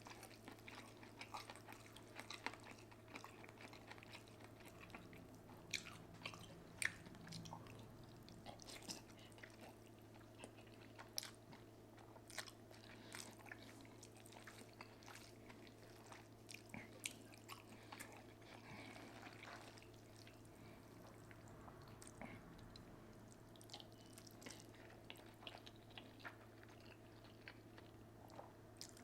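Faint, close-up chewing and biting of a person eating, with soft irregular mouth clicks, over a steady low hum.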